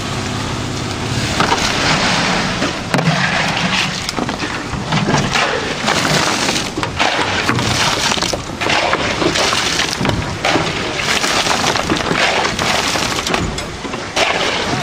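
Steel shovels scraping and chopping through wet, gravelly concrete, spreading it over steel rebar mesh in a run of irregular gritty scrapes. A low hum runs under it for the first two seconds or so.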